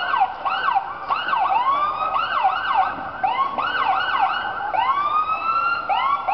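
Police car sirens sounding together, their quick rising and falling wails overlapping, with a few slower rising wails near the end.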